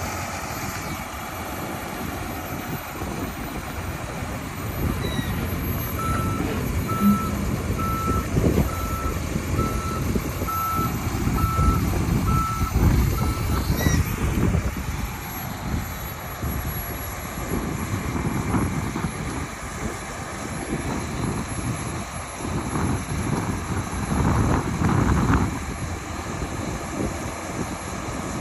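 John Deere 250D II articulated dump truck's diesel engine running, with its reversing alarm giving short, evenly spaced beeps about once a second for some eight seconds about a third of the way in. Later the engine revs up in swells as the hydraulics raise the dump body.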